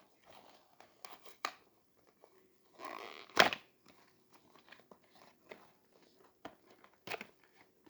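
Packaging being handled and opened: scattered small clicks and crinkles, with a louder rustling burst about three seconds in.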